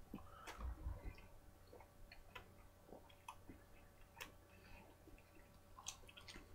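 Faint, irregular clicks and smacks of a man chewing and swallowing a mouthful of chicken sandwich.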